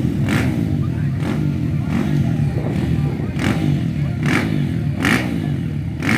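Several 250 cc motocross bikes running at the start line, their overlapping engine notes rising and falling as the riders work the throttles. A brief hiss recurs about once a second over the engines.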